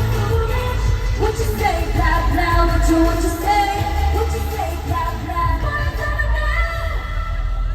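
Pop song with sung vocal lines over a heavy bass, played loud through an arena sound system.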